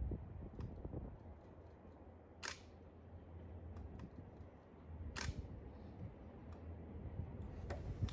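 Camera shutter firing twice, about two and a half seconds apart, with a fainter click near the end, over a low steady rumble.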